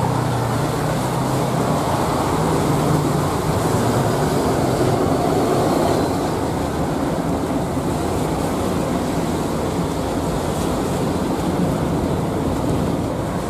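Boeing 737-800 jet engines at takeoff thrust as the airliner climbs away, a steady low rumble that grows slightly fainter after a few seconds.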